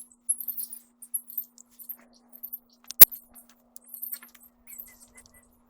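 Clusters of very high-pitched chirps repeating throughout, over a faint steady hum, with one sharp click about three seconds in.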